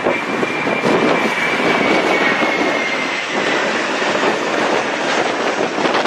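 Twin-engine Airbus jet airliner on final approach, its jet engines giving a steady rushing noise with a faint high whine that falls slightly in pitch over the first few seconds.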